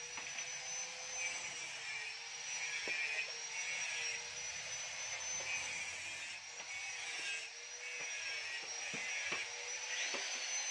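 Steady mechanical hum with a faint, slightly wavering high whistle, pulsing about once a second, and a few light clicks near the end.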